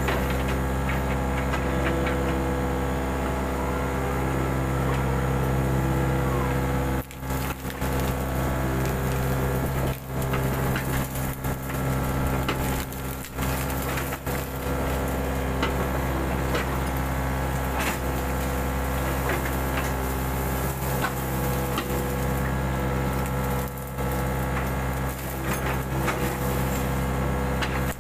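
Mini excavator's diesel engine running steadily under work, with scattered sharp cracks and snaps throughout and brief dips in loudness a few times.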